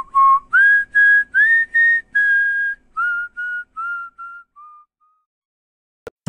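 A short whistled tune of about a dozen notes, some sliding up into pitch. The melody climbs over the first two seconds, then steps back down with each note quieter, dying away about five seconds in.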